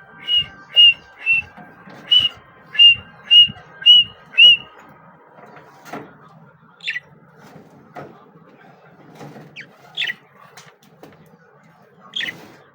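Small parrots calling: a run of eight loud, sharp chirps about two a second, then a few scattered calls that sweep down in pitch.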